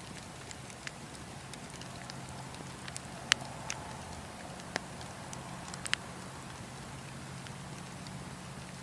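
Fire crackling: a steady low rush of flames with scattered sharp pops, the loudest a little over three seconds in.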